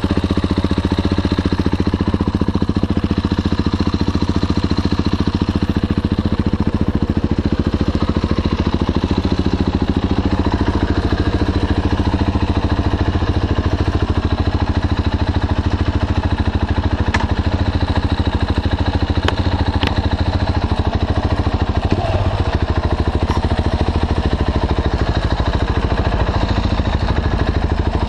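KTM 690 Duke's single-cylinder engine idling steadily through an Akrapovic slip-on exhaust with the catalytic converter bypassed, a loud, even stream of firing pulses.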